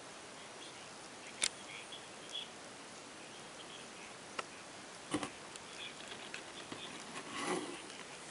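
Quiet room tone with a few sharp clicks, about a second and a half in and again around four and five seconds, and a brief rustle near the end.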